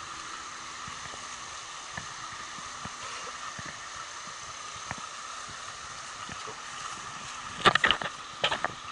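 Steady rush of a creek running high after rain. Near the end, two brief bursts of sharp clattering knocks cut in loudly over it.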